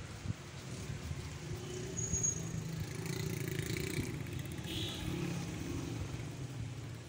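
A motor vehicle's engine running as it passes by: a low hum that grows louder about two seconds in, holds through the middle and fades near the end.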